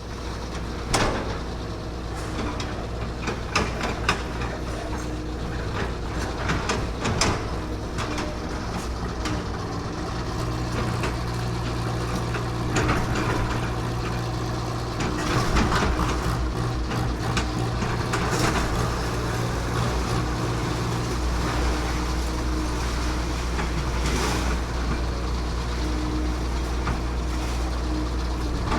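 Machinery at a waste recycling facility: a steady low drone of running machines and engines, broken by frequent clanks and knocks and a few brief hisses.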